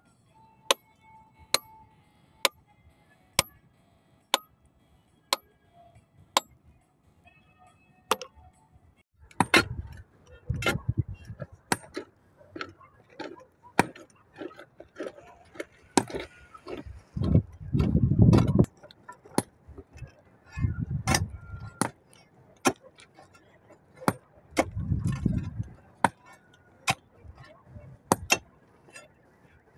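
Hammers striking rock: sharp metal-on-stone blows about once a second for the first eight seconds, then more irregular strikes with a few deeper rumbling bursts between them.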